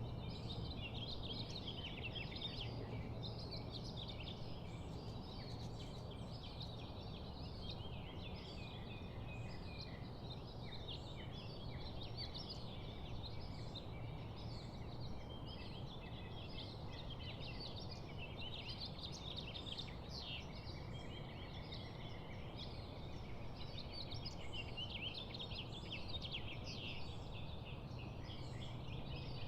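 Many small birds chirping and twittering at once in a continuous morning chorus, over a steady low background rumble.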